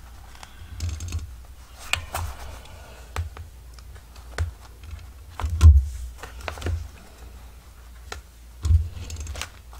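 Irregular clicks, taps and dull bumps on a desk as a journal cover and paper template are handled and holes are punched in the spine for the signatures. The loudest bump comes a little past the middle, with another near the end.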